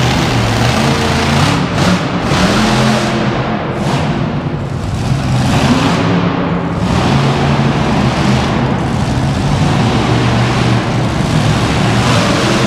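Monster truck engines running loudly, with music playing along over them.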